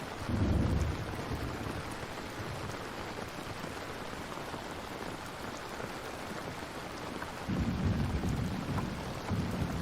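Steady rain falling, with low rumbles of thunder: a short one just after the start and a longer, rolling one near the end.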